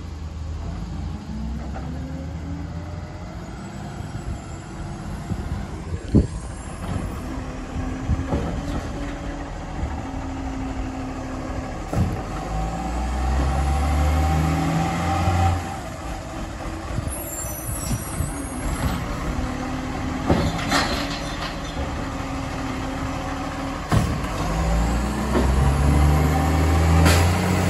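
Garbage truck's diesel engine running, its note stepping up and down in long spells of higher revs as it works, with a few sharp knocks along the way.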